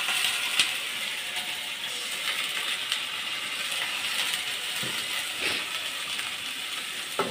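Sliced onions, garlic and green chili sizzling steadily in a blackened wok just after a splash of water has gone in, with a few sharp clicks and taps from the metal spatula against the pan.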